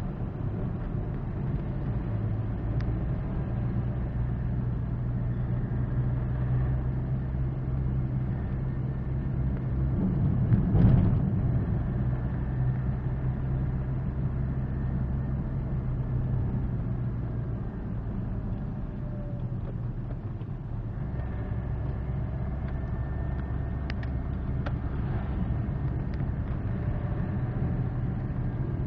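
Inside a Maruti Suzuki Swift's cabin while driving: a steady low engine and road hum. There is a brief louder thump about eleven seconds in, and the engine note eases off for a few seconds past the middle before picking up again.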